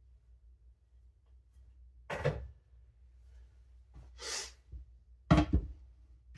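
Hard knocks of objects, most likely whetstones and gear, being set down on the sharpening bench. One comes about two seconds in and a louder one near the end, with a short hiss between them.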